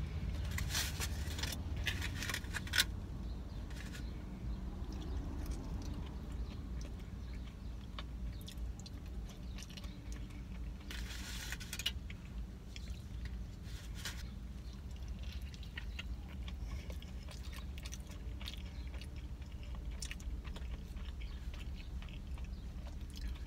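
Close-up chewing and biting of a breakfast burrito, with short bursts of handling noise in the first few seconds and again about eleven seconds in, over a steady low hum.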